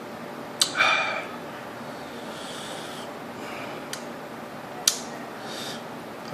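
A man breathing hard and sniffing through the burn of a superhot chili pepper, with a strong exhale about a second in. A few sharp clicks are heard along the way.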